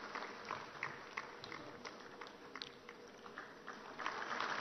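Light, scattered hand clapping from a few people, single sharp claps about three a second, swelling into fuller applause about four seconds in.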